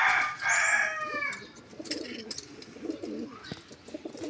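A rooster's crow tails off in its first second or so, then pigeons coo in low, wavering bursts.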